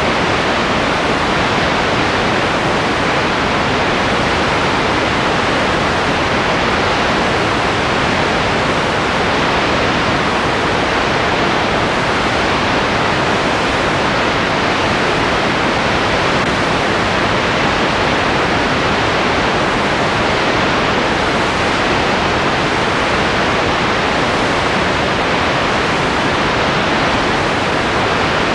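Steady, even hiss of noise that does not change, with nothing else in it.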